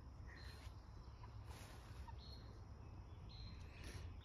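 Faint quiet yard sound of free-ranging chickens: a few short, soft high-pitched chicken calls scattered through, over a low steady rumble.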